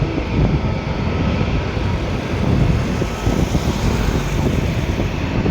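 Jet airliner engines rumbling steadily, with wind buffeting the microphone.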